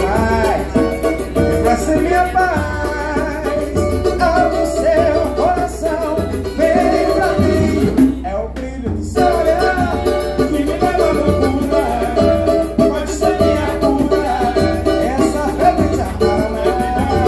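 Live samba: a man sings over a strummed cavaquinho, a pandeiro's jingles and a hand-played barrel drum that keeps a steady bass beat. The higher percussion and strings drop out for about a second roughly eight seconds in, then the groove picks up again.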